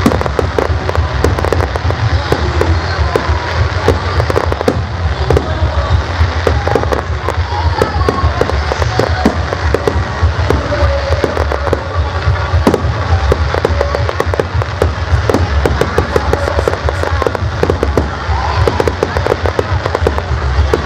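Fireworks display: a continuous rapid barrage of bangs and crackles over a heavy low rumble, with no let-up.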